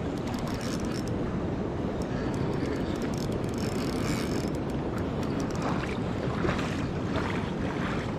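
Steady rushing noise of river water below a hydroelectric dam, mixed with wind on the microphone, with faint light clicks through it.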